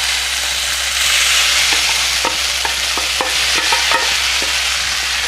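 Masala-coated fish pieces frying in hot oil, sizzling steadily as the water in the fish cooks off. A few short clicks of stirring in the pan come through the middle.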